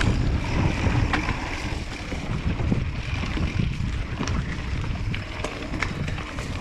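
Hardtail mountain bike rolling down a rough dirt trail: a steady low tyre-and-trail rumble with several sharp rattling clicks as it goes over bumps, and wind buffeting the microphone.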